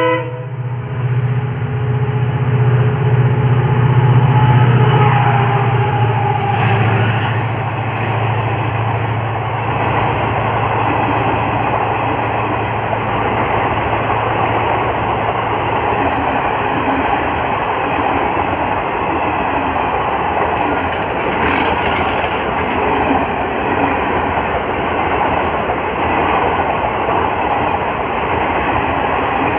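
A diesel-hauled express train running through the station at speed. The WDP-4D locomotive's engine hum is loudest in the first several seconds, then gives way to a long, steady rush of coaches rolling past, wheels clattering on the rail.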